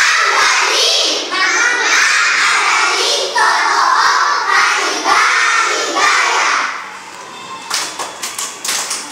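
A group of young children shouting lines of a choral piece in unison, in loud phrases about a second long with short breaks between. Near the end this gives way to a quick run of sharp claps.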